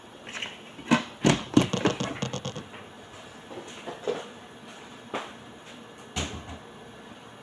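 Knocks and clatter of a glass blender jar being handled and fitted onto its base: a burst of sharp knocks and rattles in the first couple of seconds, then a few single knocks. The blender motor has not yet started.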